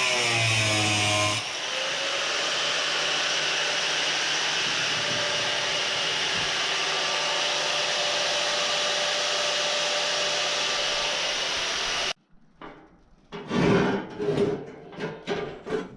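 Power saw running steadily as it cuts, its pitch shifting in the first second or so, then stopping abruptly about twelve seconds in. A few short, uneven sounds follow near the end.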